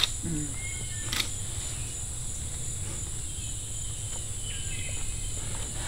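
Steady high-pitched drone of insects calling in chorus over a low rumble, with a sharp click at the start and another about a second in.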